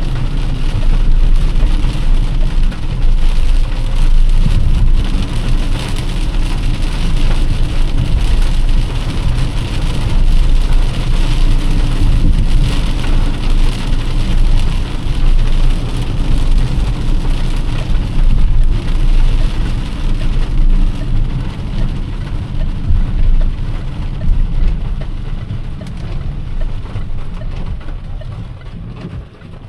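Heavy rain beating on a moving car, many fine drop hits over a steady low rumble from the car and road. It quietens over the last few seconds.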